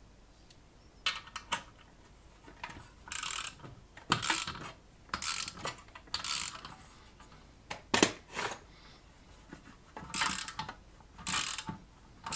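Ratchet wrench clicking in short bursts about once a second as it is swung back and forth, turning the drive screw of a chassis punch to cut a hole in aluminium chassis sheet.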